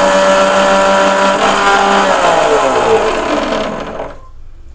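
Electric mixer grinder (mixie) dry-grinding roasted sesame seeds, cumin and dried red chillies into powder: the motor runs at full speed with a steady whine, then is switched off about two seconds in and winds down, falling in pitch until it stops about four seconds in.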